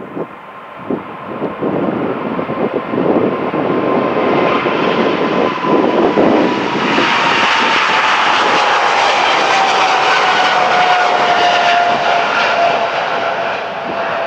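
Boeing 777-300ER's twin GE90 turbofans at take-off thrust. The loud roar builds over the first few seconds and then holds steady, with a whine that slowly falls in pitch as the jet passes.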